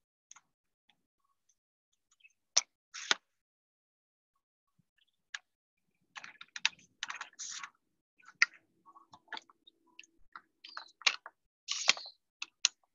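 Clicks, taps and rubbing from a phone being handled and moved about, in short irregular bursts with silence between them.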